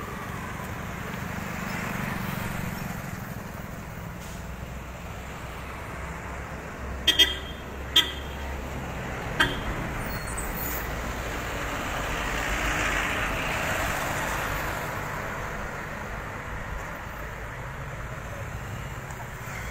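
Road traffic passing, swelling twice as vehicles go by. A vehicle horn gives four short toots, three close together about seven to eight seconds in and one more a second and a half later.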